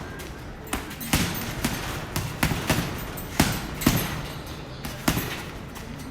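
Boxing punches landing in an irregular series of sharp thuds, one or two a second.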